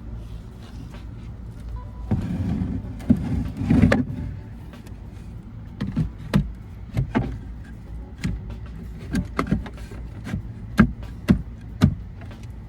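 Wooden cover boards being handled and fitted over a van's battery compartment: a scraping, shuffling stretch about two seconds in, then a run of sharp knocks and taps as the pieces are set in place. A steady low hum runs underneath.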